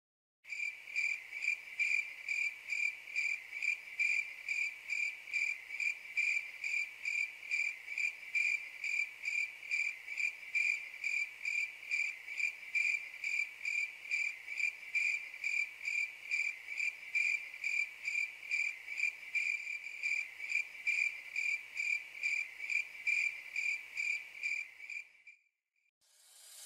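Cricket chirping steadily, about three evenly spaced chirps a second on one high pitch, fading out near the end.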